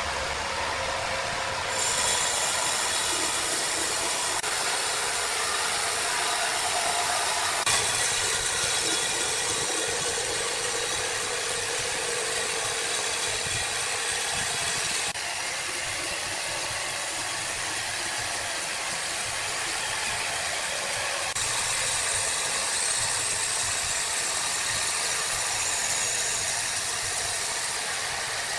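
Sawmill machinery running: a steady, hissing mechanical din that shifts abruptly in character several times, roughly every six seconds.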